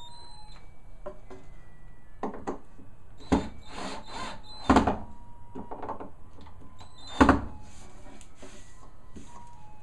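Cordless drill running in short bursts into a walnut border strip, with several sharp wooden knocks, three of them loud, as the boards and drill are handled.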